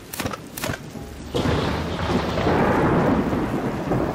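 Thunderstorm sound effect with rain: two sharp cracks of thunder, then a long, loud rumble of thunder that begins about a second in and carries on over the rain.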